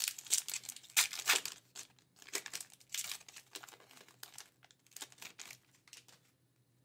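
Foil wrapper of a hockey card pack being torn open and crinkled as the cards are slid out: crackling rustles, loudest in the first second and a half, then fainter and broken up.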